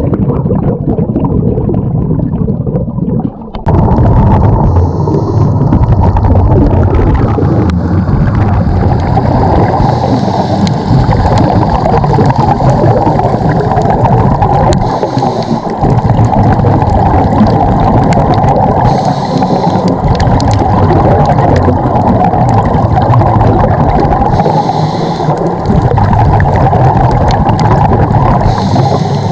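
Underwater recording of a scuba diver: a constant heavy rumble of water against the camera housing, broken every four to five seconds by the hiss and gurgle of exhaled bubbles from the regulator.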